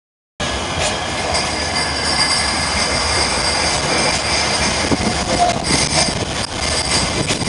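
After a brief silent gap at the start, Bombardier M5000 (Flexity Swift) trams pass close by on street track, giving a steady rumble with a thin high-pitched wheel squeal over it.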